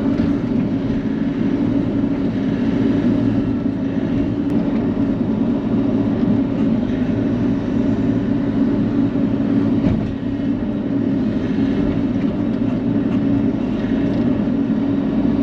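Bobcat E42 mini excavator's diesel engine running under load with a steady hum, easing briefly about ten seconds in.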